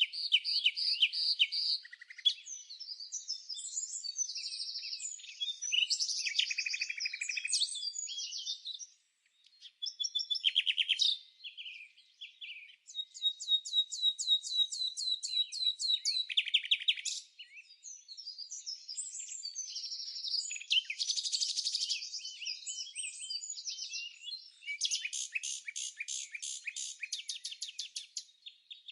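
Birdsong: several varied phrases of chirps, whistles and fast trills, some of the trills repeating many notes a second, with a brief pause about a third of the way through.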